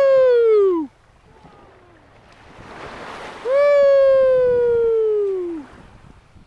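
A high voice calls out twice in drawn-out 'ooh' sounds with no words. The first is short, rising then falling; the second lasts about two seconds and slowly falls in pitch. Between the calls a small wave washes up the sand.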